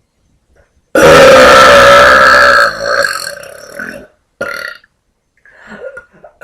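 A woman's very loud, long burp from swallowed air. It starts suddenly about a second in, holds full strength for nearly two seconds, then trails off, followed by a few short, quieter sounds.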